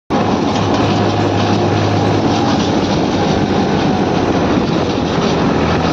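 Diesel tractor engine running steadily under way, heard from the driver's seat: a steady low drone under a dense rush of road noise.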